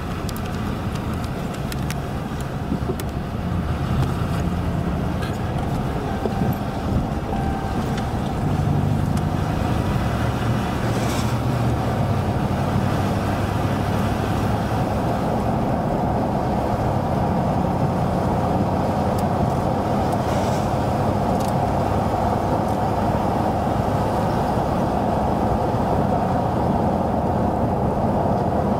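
A car running steadily: a low engine hum under an even rumble.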